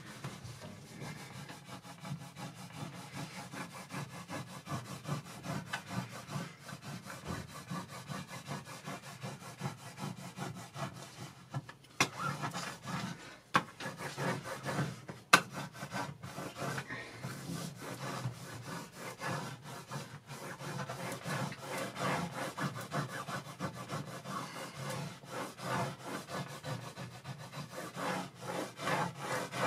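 A plastic set square scraped rapidly back and forth over adhesive transfer foil on a desk, pressing the glue film onto the printed sheet. A sharp click about halfway through.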